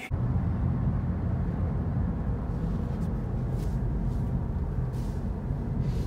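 Steady low road and engine rumble inside the cabin of a moving car.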